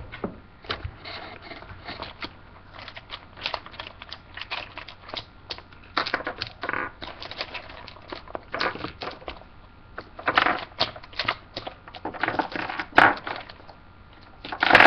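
Things being rummaged through and handled by hand: irregular rustling and crinkling with light knocks, in louder clusters about six, ten and twelve seconds in, and one sharp click about thirteen seconds in.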